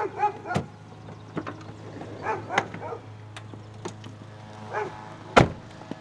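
A dog barking a few short barks over a steady low hum, with one loud thump about five seconds in.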